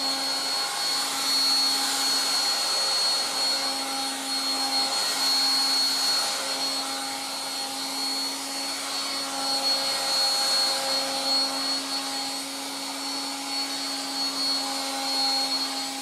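1960s Dateline DLMD hairdryer running: a steady motor hum and a thin high whine over the rush of blown air, wavering slightly in loudness as it is moved over the hair.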